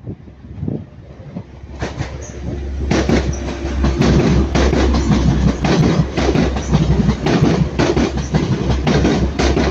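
TransPennine Express Class 185 diesel multiple unit passing, getting louder about three seconds in. Its engines run with a steady low drone under the clickety-clack of wheels over rail joints.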